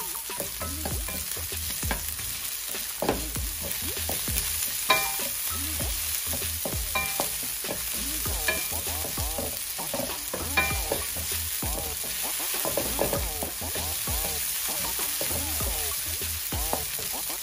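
Sliced onion sizzling in oil in a nonstick frying pan as a wooden spatula stirs and scrapes it around, with a few sharper knocks of the spatula against the pan.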